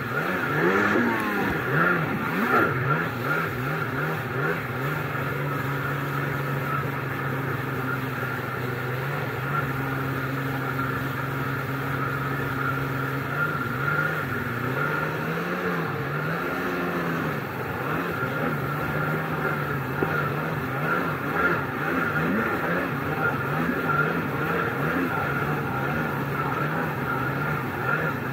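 1998 Kawasaki SXi Pro stand-up jet ski's two-stroke engine running under way. It holds steady revs for several seconds, then rises and falls repeatedly with the throttle, over the rush of water spray and wind.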